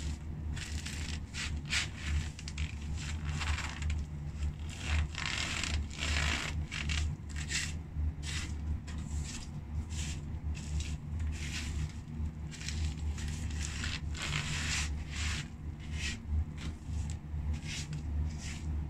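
Socked feet treading on and grinding cooked french fries against a tile floor: many irregular squashing and scraping strokes. A steady low hum runs underneath.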